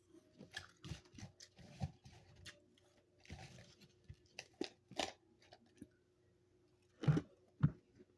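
A person chewing freezer frost, soft crunches in an irregular run, then a short pause and two loud bites near the end.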